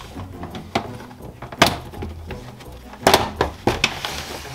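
Plastic interior trim cover on a Ford Fiesta's centre console being pulled off by hand: several sharp, irregular clicks and knocks as the clips let go, with a cluster of them a little after halfway.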